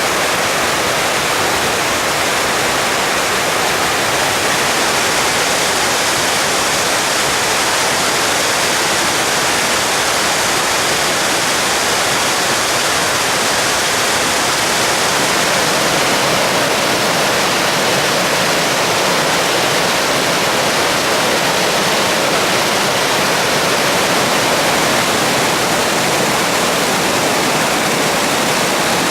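Mountain waterfall rushing steadily, a loud even spray of falling water.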